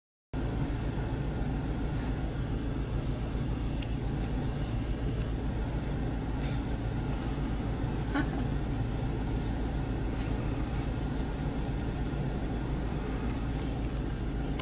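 A vehicle engine idling, a steady low rumble that cuts in abruptly just after the start, with a couple of faint clicks.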